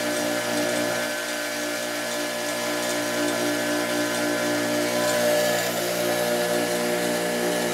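A Harbor Freight 6-inch bench grinder running at full speed: a steady motor hum with a regular pulsing beat. Its vibration is carried through its base into the steel stand, which the owner puts down to the grinder base touching the metal stand.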